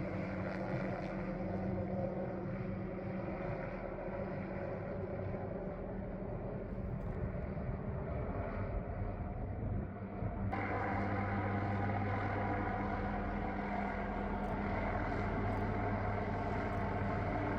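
Helicopter working an aerial tree-trimming saw, its engine and rotors droning steadily; about ten seconds in the sound suddenly becomes louder and brighter.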